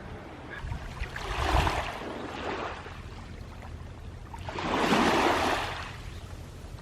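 Small waves washing up onto the shore, two rushes that swell and fade about three seconds apart.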